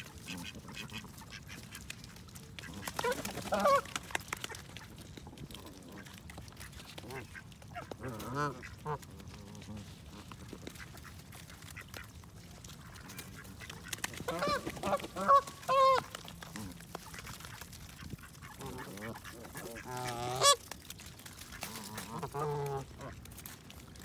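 Canada geese calling at close range: honks and lower grunting calls in about five short bouts, loudest a little past the middle.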